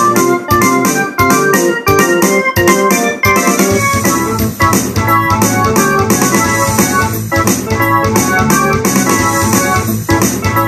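Ensoniq SD-1 synthesizer played by hand: chords and a melodic line in a quick, steady rhythm.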